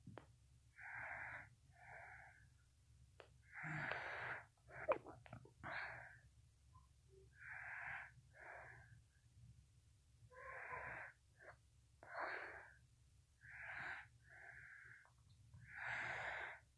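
Faint breathing close to the microphone: short breaths in and out, repeating every second or two.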